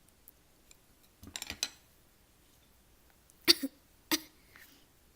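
Jelly packaging being handled: a short crinkly rustle about a second in, then two sharp clacks about half a second apart.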